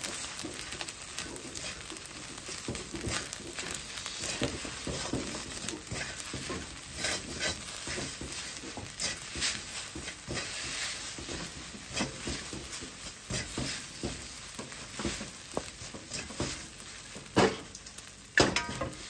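Fried rice sizzling in a wok while a spatula stirs, scrapes and tosses it, with frequent small clicks of the spatula against the pan. There are two louder knocks near the end.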